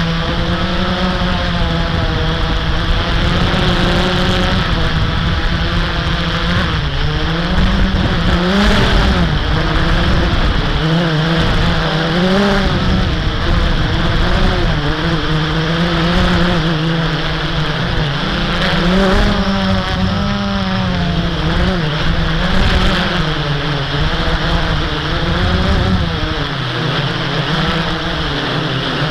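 Blade 350 QX quadcopter's electric motors and propellers buzzing in flight, the pitch wavering up and down continuously as the throttle and motor speeds change, over a rush of air.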